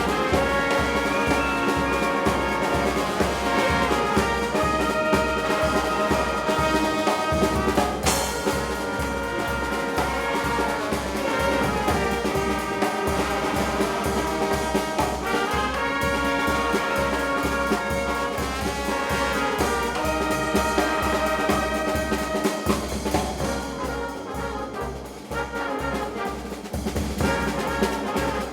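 Brass band music: trumpets and trombones playing together over a steady low beat.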